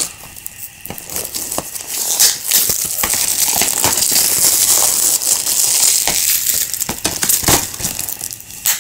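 Plastic packaging on DVD cases crinkling and crackling as hands work at getting it open, with scattered clicks and a knock near the end.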